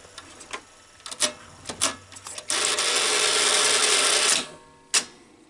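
Sony SL-5000 Betamax VCR mechanism: a few clicks, then its motor and gears run for about two seconds and stop, followed by a single click. The tape transport has a mechanical fault: the idler tire that drives the reels is worn out.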